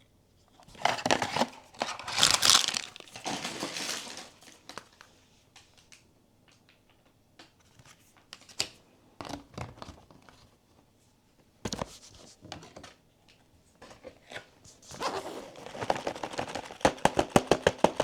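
Blind-box packaging being opened by hand: plastic wrapping crinkling and tearing in bursts, then scattered light clicks and, near the end, a quick run of rapid taps and crinkles.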